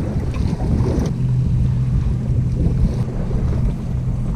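Boat engine running at idle with a steady low hum, under wind buffeting the microphone.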